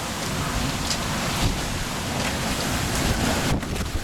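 Strong storm wind with heavy rain: a steady rushing noise, with gusts buffeting the microphone.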